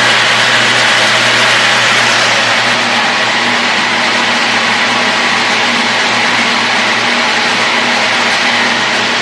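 Steady mechanical drone of machinery at a coffee dryer being loaded with coffee: a constant low hum under an even hiss, with no change in pace.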